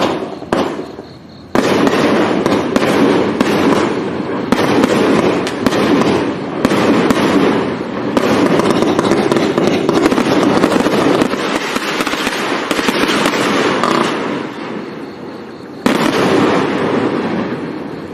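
A 50-shot compound consumer fireworks cake firing rapidly. The shots launch and break so close together that they run into one dense barrage. There is a short lull just after the start, the firing eases off a few seconds before the end, and then it surges again suddenly.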